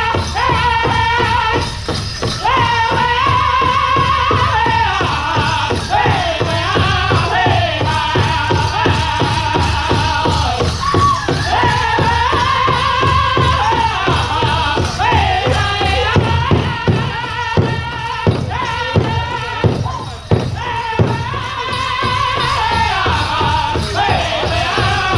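Powwow drum group performing a contest song for the chicken dance: several singers in high, bending voices over a steady beat on a large shared drum. The drumbeats come through harder in the second half.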